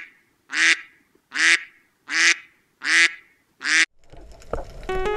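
Duck quacking, a dubbed-in sound effect: the same nasal quack repeated evenly a little more than once a second. It cuts off sharply about four seconds in, and after a click, music with sustained chiming tones starts near the end.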